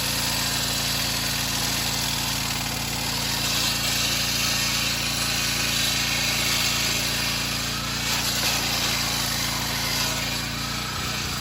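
16-inch Vevor electric concrete saw cutting through a concrete slab: a steady, loud grinding hiss over a steady low hum. The low hum breaks up shortly before the end.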